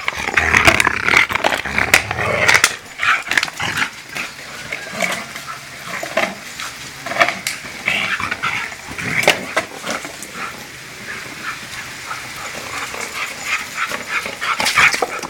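A husky chewing and crunching a plastic bottle, the plastic crackling in many irregular sharp clicks, busiest in the first few seconds, with short dog vocalisations mixed in.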